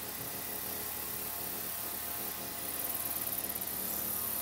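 A string trimmer (weedeater) engine running steadily in the distance under a constant hiss, with a high buzzing that pulses briefly a little past the middle.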